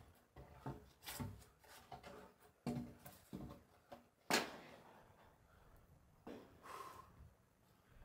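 A long wooden beam knocking and scraping as it is handled upright: a run of irregular wooden knocks and thuds, the loudest about four seconds in.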